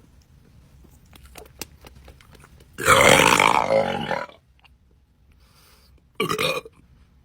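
Faint clicks, then about three seconds in a long, loud burp from gulping carbonated Sprite, lasting about a second and a half. A shorter burst follows near the end.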